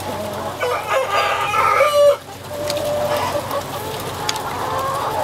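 A flock of broiler breeder chickens clucking and calling, with one loud drawn-out call lasting over a second that stops abruptly about two seconds in.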